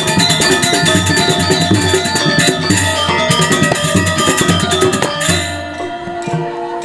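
Balinese gamelan playing a fast, dense passage of metallophones and drums. About five seconds in it thins out to a few ringing tones.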